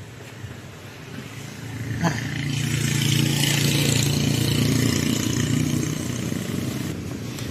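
A motor vehicle's engine passing on the street alongside, over street traffic noise. It swells up about two seconds in as a steady hum, holds for a few seconds, and fades near the end.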